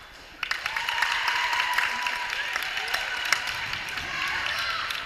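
Gym crowd suddenly breaking into cheering and clapping about half a second in, many sharp claps under shouting voices.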